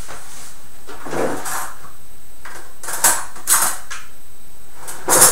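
A kitchen utensil drawer pulled open and cutlery rattling as a fork is picked out: a few short clinks and knocks, then a louder clatter near the end.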